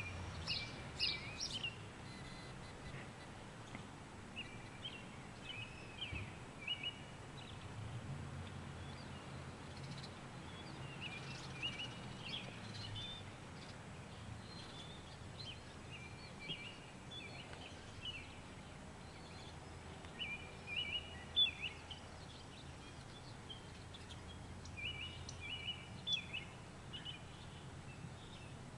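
Small songbirds chirping in short, repeated phrases every second or two, over a faint, steady low hum.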